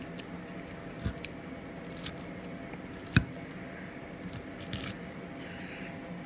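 Metal fork clinking and scraping against a plate as it spears salad, with soft squishing of the leaves. One sharp clink about three seconds in is the loudest, with fainter taps around it, over a steady low hum.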